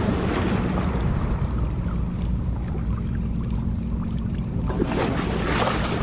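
Steady wind rumble on the microphone over the wash of choppy sea water, with a few faint sharp ticks.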